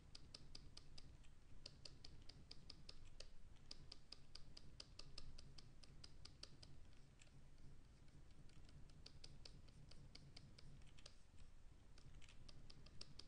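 Faint rapid clicking at a computer desk, several clicks a second in runs with short pauses, over a low steady hum.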